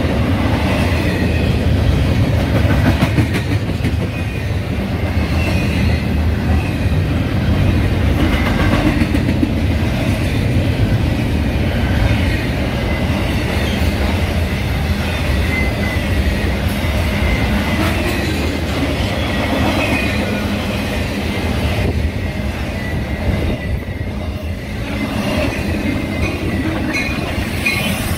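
BNSF double-stack and trailer intermodal freight train passing close by: a steady loud rumble of rolling wheels and cars that continues without a break.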